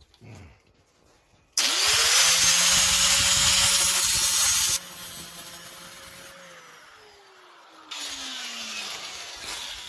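A handheld electric power tool spins up and works loudly on the broom's hardware with a harsh hiss for about three seconds. When the hiss stops, the motor runs on and winds down slowly with a falling whine. A second, quieter stretch of hissing comes near the end.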